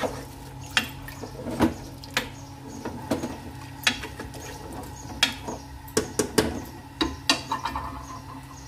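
Meat, onions and spices being mixed by hand in an aluminium pressure cooker: irregular clicks and knocks against the pot, about one or two a second.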